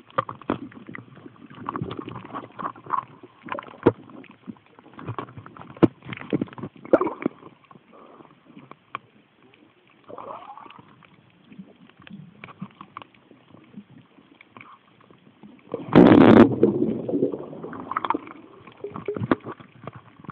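Muffled underwater sound from a camera held under the water: irregular gurgling, sloshing and clicks, with a much louder rush of noise about sixteen seconds in that fades over a couple of seconds.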